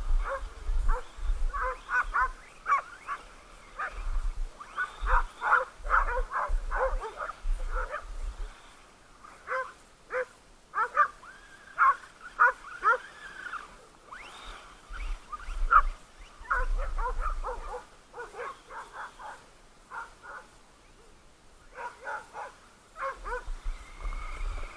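Several dogs barking excitedly in rapid clusters of short barks, pausing now and then before starting again, with a low rumble underneath at times.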